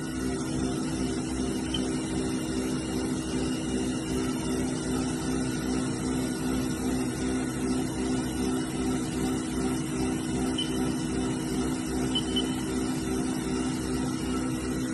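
Haas VF-0E spindle motor, driven by its 20 hp vector drive, running unloaded with a steady hum that pulses rhythmically. This is the rough spindle noise that sounds like bad bearings, and it comes with the spindle RPM bouncing and a high spindle load while cutting air.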